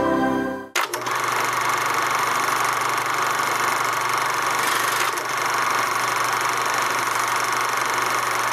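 A steady mechanical running clatter, starting about a second in just as music cuts off.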